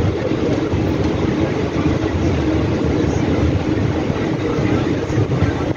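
Steady rumble of a passenger express train's coaches running along the track, heard through an open coach window.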